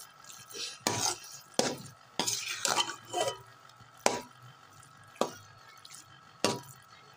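Slotted metal spatula scraping and knocking against an aluminium pot as thick carrot halwa with khoya is stirred and pressed while it is being fried down. The strokes come separately about a second apart, with a busier run of scraping around the middle.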